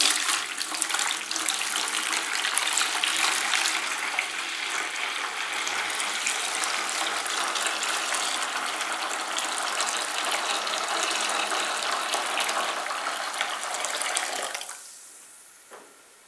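A stream of hot water pouring into a plastic basin onto oxygen-bleach granules. The pour stops about fifteen seconds in, leaving a faint fizz as the granules dissolve.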